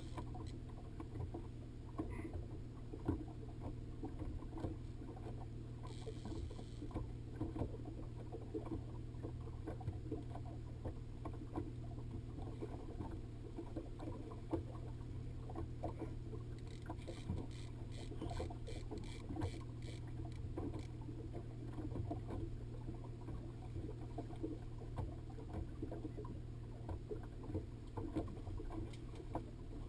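Boat's outboard motor running steadily, with water slapping and small knocks against the hull.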